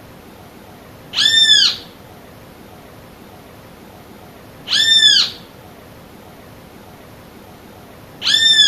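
Great kiskadee (bem-te-vi) calling three times, evenly spaced about three and a half seconds apart. Each call is a single short note that rises and then falls in pitch.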